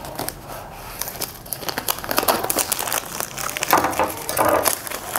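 Thin plastic shrink-wrap crinkling and crackling as it is peeled off a small cardboard product box by hand, getting denser and louder about two seconds in.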